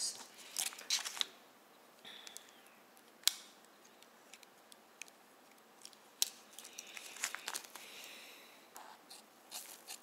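Quiet handling of a plastic bag, crinkling, with scattered sharp clicks as a pocket multi-tool's blades are folded out. Near the end its small scissors snip rapidly into the plastic.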